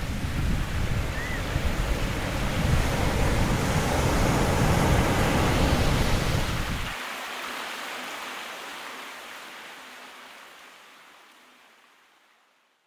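A rushing, surf-like noise with a deep rumble underneath. The rumble cuts off about seven seconds in, and the remaining hiss fades out slowly.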